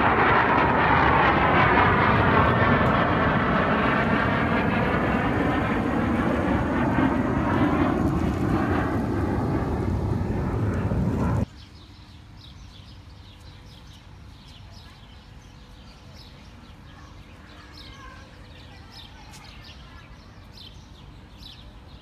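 Airplane passing low overhead: a loud roar with a sweeping rise and fall in pitch, cut off abruptly about eleven seconds in. After it comes a much quieter open-air background with short bird chirps.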